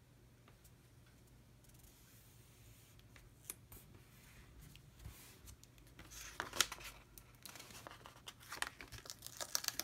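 Paper sticker sheet handled close up: little is heard for the first few seconds, then from about six seconds in, a run of crisp crackles and clicks as the sheet is picked up and flexed and a washi sticker strip is peeled from its backing.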